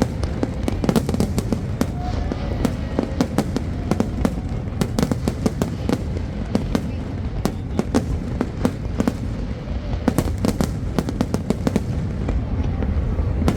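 Fireworks exploding in a continuous barrage: rapid, irregular sharp cracks and bangs, several a second, over a constant low rumble.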